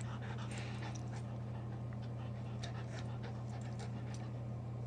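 A dog panting, over a steady low electrical hum, with a few faint clicks.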